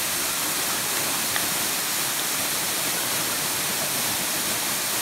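Waterfall pouring into a pool: a steady, even rush of falling water splashing down.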